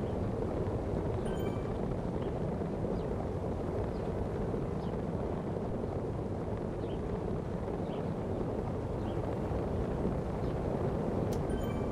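Steady rushing wind noise on the microphone, with a low rumble underneath and a few faint short chirps.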